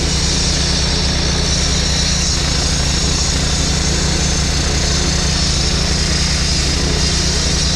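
A machine engine running steadily at a constant speed, with a high hiss over it.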